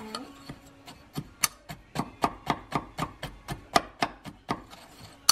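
Metal spoon clinking against a glass measuring cup while stirring a dry spice rub, a quick, even run of taps about four a second that starts about a second in.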